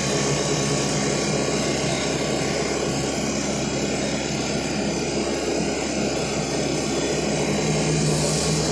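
A steady engine drone: an unchanging low hum under a hiss of noise.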